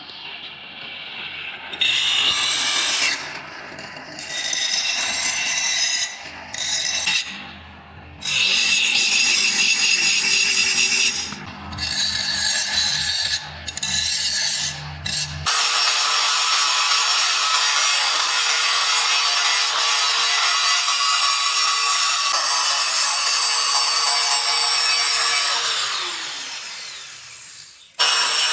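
Electric grinder working steel: grinding in short passes of a second or two, then one long steady grind. Near the end the motor is switched off and its pitch falls as it winds down.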